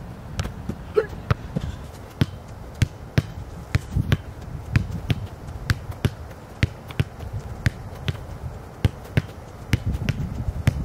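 Small soccer ball being kicked over and over with cleats: sharp, short thuds of boot on ball, and of ball against a concrete wall, coming unevenly about two a second.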